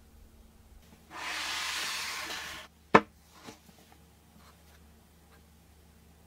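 Cardboard smartphone box handled with gloved hands: a smooth sliding rub for about a second and a half, then a sharp knock as it meets the table and a lighter tap half a second later.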